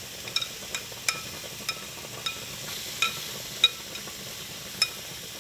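A spoon clinking sharply against a dish about ten times at uneven intervals as sauce is spooned onto the fish, each clink ringing briefly. Under it runs a steady sizzle from rice boiling and zucchini cooking on the stove.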